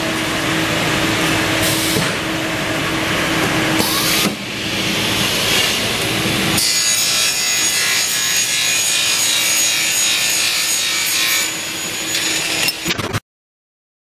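Cut-off saw running and sawing through aluminum stock, a rasping saw noise over a motor hum, with two brighter surges as the blade bites, about two and four seconds in. Halfway through it gives way to a different steady machine noise with a high whine, which stops abruptly near the end.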